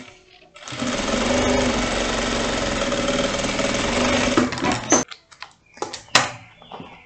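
Jack industrial lockstitch sewing machine running steadily for about four seconds as it stitches a lining onto a zipper seam, then stopping abruptly. A few sharp clicks follow as the work is handled.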